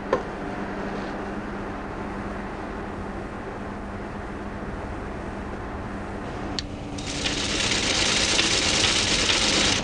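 A steady low hum, then a click about six and a half seconds in, and a teleprinter starts clattering rapidly as it prints "OK": the computer accepting the signature as genuine.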